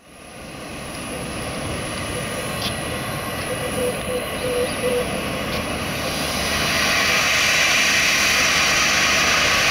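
Boeing 737-300's CFM56 jet engine running as a steady rush, growing louder about seven seconds in.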